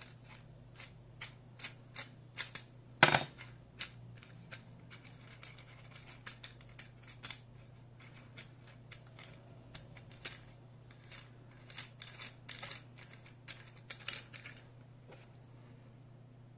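Aluminium clamp of a tablet holder being handled, giving scattered metallic clicks and knocks, the loudest about three seconds in and a quick run of them a few seconds before the end. A low steady hum lies underneath.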